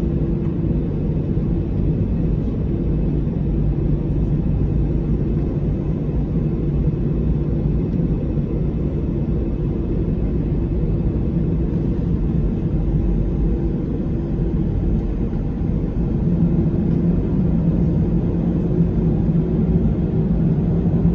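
Cabin noise of an Airbus A318 twin-jet heard from a front-row seat: a steady low engine rumble with a hum in it, growing a little louder about three-quarters of the way through.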